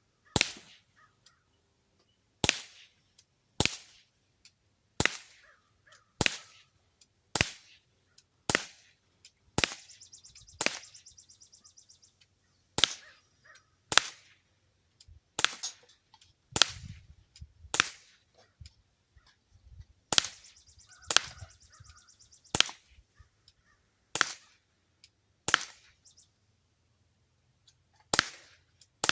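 Umarex Smith & Wesson M&P 40 non-blowback CO2 BB pistol firing shot after shot, about twenty sharp pops roughly a second or so apart.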